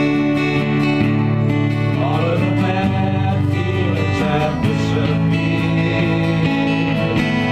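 Background music led by acoustic guitar, in a country style.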